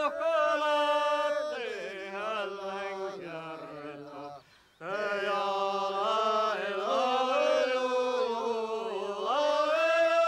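A man's voice joiking in traditional Sámi style: long held notes that waver and step up and down, with a short breath break about four and a half seconds in.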